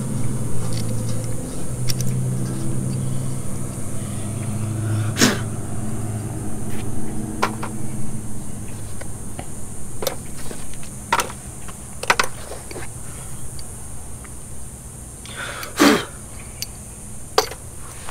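Metal hand tools clicking and clinking as a socket wrench is handled and set down, and small parts are rummaged in a plastic organizer box: scattered short knocks, with one louder noise near the end. A low steady hum runs under the first few seconds, then fades.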